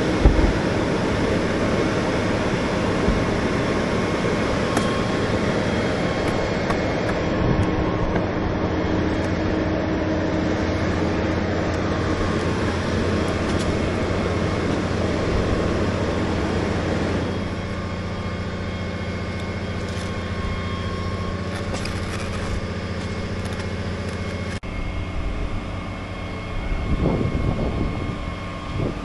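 Diesel engine of a truck-mounted crane running steadily with a low, even hum. It settles to a slightly lower note partway through, and wind gusts across the microphone near the end.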